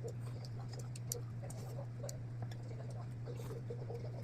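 Scattered faint clicks and ticks over a steady low hum.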